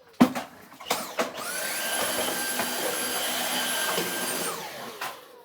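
Cordless Dyson stick vacuum switched on about a second in, its motor whine rising to a steady high pitch, then switched off and winding down near the end. A couple of sharp knocks come before it starts.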